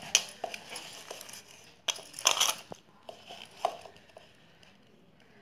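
Hands mixing and squeezing damp rice flour in a metal bowl, crumbly scrunching with scattered sharp clicks of fingers against the bowl, loudest about two seconds in and dying away near the end. The flour has just been wetted with hot water and is being worked into kozhukattai dough.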